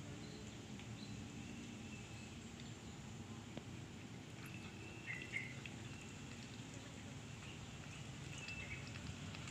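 Quiet outdoor background with faint short chirps of small birds around the middle and again near the end, and faint small clicks of a tortoiseshell cat chewing food scraps from a plate.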